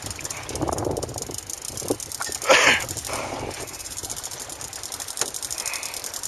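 Small outboard motor idling with a fast, even ticking over a low rumble. A brief louder rush comes about two and a half seconds in.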